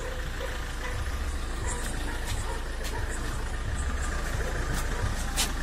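A car engine idling steadily, a low rumble, with a few sharp clicks over it.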